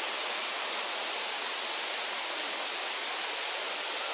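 Rushing water, heard as a constant, even hiss with no breaks or changes.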